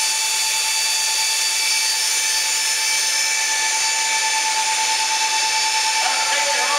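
Steady whine of running machinery: a constant high tone with fainter higher tones over an even hiss, unchanging throughout.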